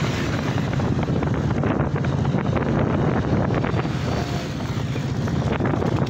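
Wind buffeting the microphone of a moving two-wheeler, with its engine running and road noise underneath.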